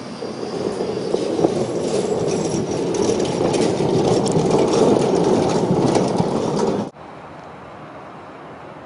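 A city tram passing close by, running over the rails with a steady rumble and sharp clicks, growing louder as it nears. About seven seconds in the sound cuts off abruptly to a much quieter steady background noise.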